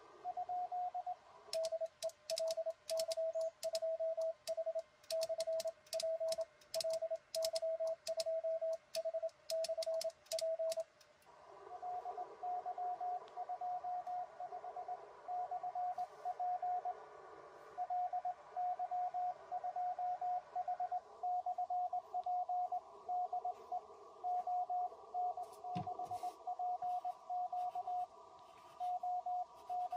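Morse code (CW) from an ICOM IC-705 transceiver's speaker on the 20 m band. For about the first eleven seconds a keyed sidetone beeps in dots and dashes with sharp clicks from the key paddle. Then a slightly higher-pitched Morse signal from another station comes in, keyed over a steady band hiss.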